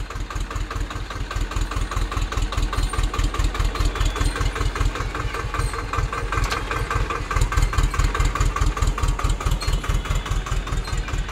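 Swaraj 724 XM tractor's two-cylinder diesel engine running at a low, steady speed with a rapid, even beat as the tractor moves slowly across the field.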